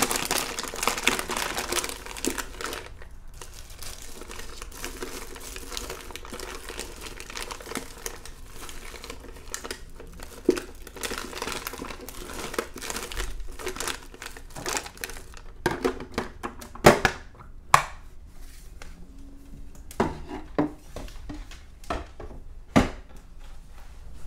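Crinkling and crackling as pecans are broken up by hand, loudest in the first couple of seconds, followed by scattered sharp clicks and taps in the second half.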